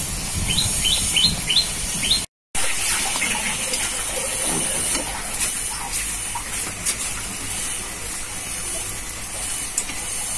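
Oil sizzling steadily as pua pitha fritters deep-fry in a metal karahi. In the first second and a half a bird chirps quickly about five times, and the sound drops out for a moment about two seconds in.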